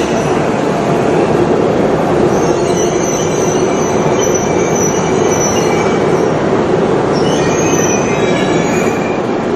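Shinkansen train running on the rails with a loud, steady rumble, and thin high-pitched squealing tones that come and go over it.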